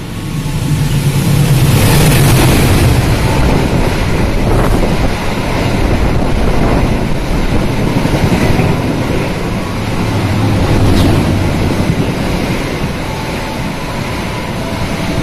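Passenger train passing through a station at speed: a loud, continuous rush of the carriages' wheels on the rails and the wind they push. It is loudest about two seconds in as the front passes, then runs on as the carriages go by, swelling again near the middle.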